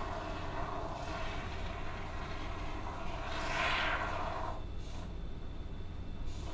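Can of expanding spray foam hissing as foam is dispensed, in a stream that swells about three seconds in and cuts off suddenly, followed by two short spurts.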